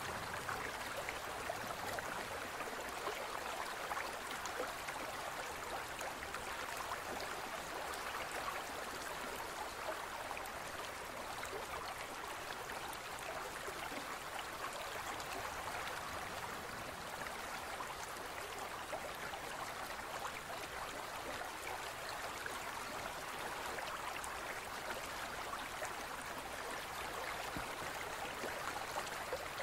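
Steady trickling of aquarium water, an even splashing hiss with fine crackles that does not change.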